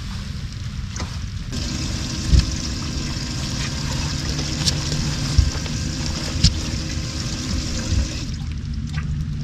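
A small electric motor starts running about a second and a half in, with water trickling and splashing, and cuts off near the end. Four dull knocks sound over it, the loudest things heard.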